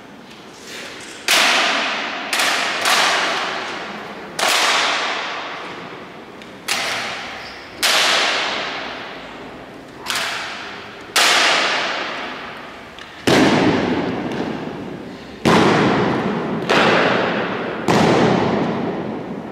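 Spanish Legion rifle drill: about a dozen sharp slaps and knocks, unevenly spaced, each ringing out in a long church echo. The last few land heavier, with a deeper thud.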